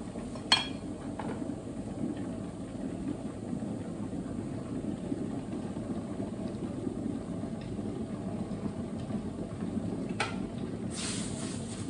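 Steady low hum of a kitchen fan. About half a second in a spatula knocks once on the stainless pan, and near the end a clack and a hiss as raw chicken goes into the hot pan of fried onions.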